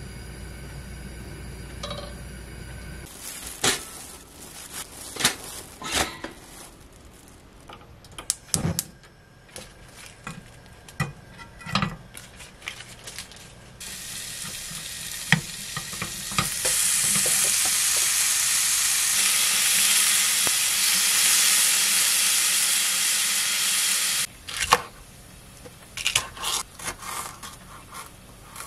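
Assorted kitchen knocks and clatter, then bacon strips sizzling in a small square frying pan for about ten seconds, growing louder partway through. Near the end, a chef's knife chopping green onion on a wooden cutting board.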